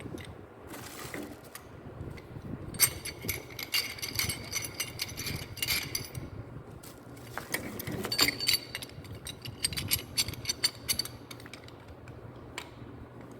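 Rapid metallic clicking and rattling in two spells of a few seconds each, from plumbing tools and fittings being handled and worked during a pipe and float-valve installation, over a steady low hum.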